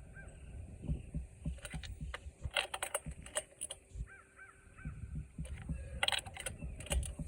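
Irregular metallic clicks and clinks of tools and engine parts being handled, with a bird chirping a quick run of repeated notes about four seconds in.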